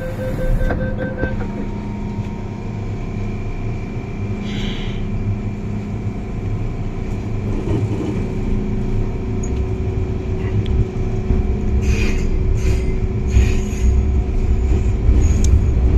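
Hong Kong MTR M-Train electric multiple unit standing at a station with a steady hum. Its doors close a few seconds in, then it pulls away, with rumble building and a motor whine starting to rise as it gathers speed.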